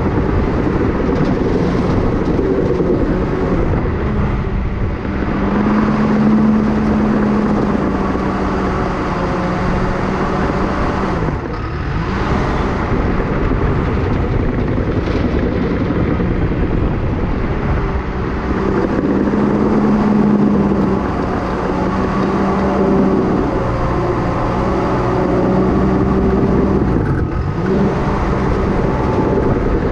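Cat D5K crawler dozer's diesel engine working under load while pushing dirt. It runs steadily, its pitch rising for a few seconds twice and dropping briefly twice.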